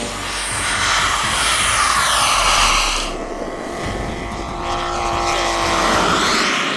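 Radio-control model airplane flying past, a loud rushing sound with an engine whine that swells twice as it goes by.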